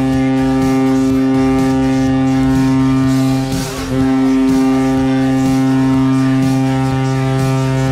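Vegas Golden Knights arena goal horn blowing a loud, steady, low blast that briefly wavers and dips about three and a half seconds in, then sounds on.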